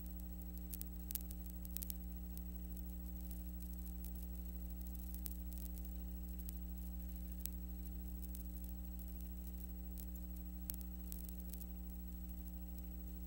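Steady electrical hum and faint hiss with scattered light clicks, the noise floor of a silent film transfer with no program sound. The clicks come in small clusters, about a second in and again near the end.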